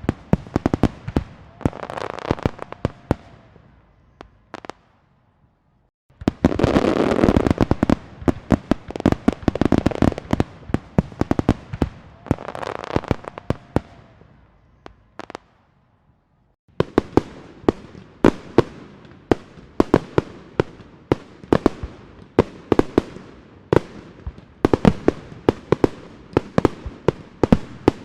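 Fireworks going off: volleys of rapid bangs and crackling, with two short breaks, about five seconds in and about sixteen seconds in.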